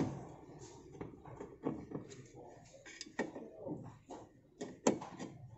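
Scattered, irregular light clicks and taps of hands and a screwdriver working on the TV's metal backlight inverter cover and its wire connector, with a sharper click at the start and another near the end.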